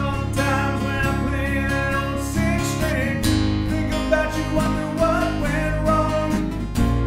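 Acoustic guitars strummed together in a steady rhythm under a male lead vocal: a live acoustic cover-band performance.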